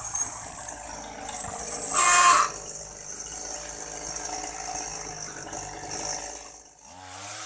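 Small two-stroke weed eater engine (25cc) driving a bicycle through a friction roller on the tyre, running at speed with a high-pitched whine. The whine is loudest about two seconds in, then the engine runs on steadier and quieter.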